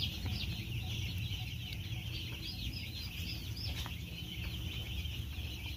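Continuous high-pitched peeping of a large flock of two-day-old broiler chicks: many short overlapping cheeps at once, over a steady low rumble.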